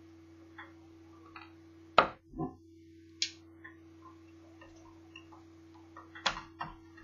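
Irregular clicks and knocks of laptop parts and small tools being handled as a Toshiba Satellite L650D laptop is taken apart. The loudest knock comes about two seconds in and another follows just after; a sharp click comes just after three seconds and a cluster of knocks near the end. A steady low hum runs underneath.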